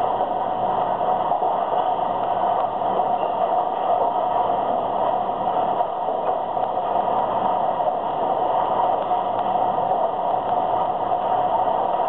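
Single-stream recycling sorting line running, with conveyors carrying mixed recyclables, making a steady, dense machine noise.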